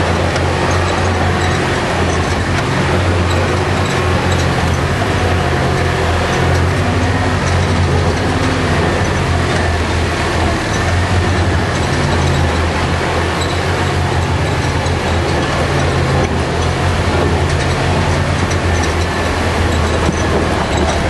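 Off-road 4x4 truck's engine running with a steady low drone as the truck drives a rough dirt trail, heard from inside the cab.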